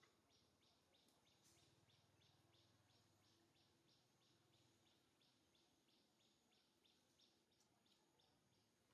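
Near silence: faint outdoor ambience with a small creature's high chirp repeating evenly, about four times a second.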